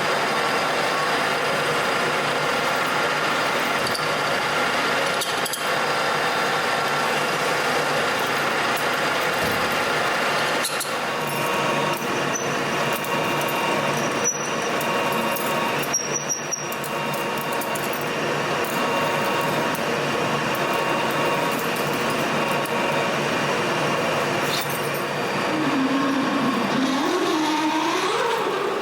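Metal lathe running and cutting, a steady machine noise with several constant tones. Near the end a wavering tone rises in pitch.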